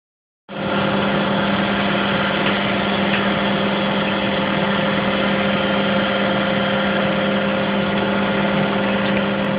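Mattison horizontal surface grinder running: a steady machine hum with a strong low drone and a fainter higher tone, starting about half a second in.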